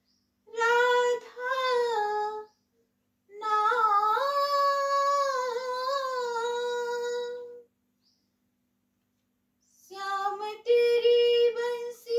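A woman singing a Hindi devotional song alone with no accompaniment: three long melodic phrases with held, gliding notes and silent pauses between them.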